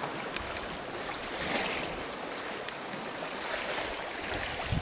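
Wind and sea rushing aboard a sailboat under sail, a steady hiss that swells briefly about a second and a half in.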